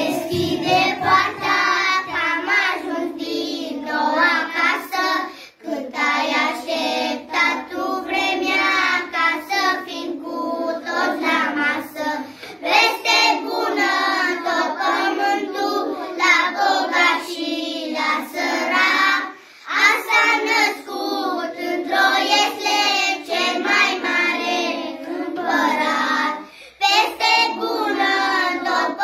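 A group of young children singing a song together in unison, with brief breaks between phrases about five, twenty and twenty-seven seconds in.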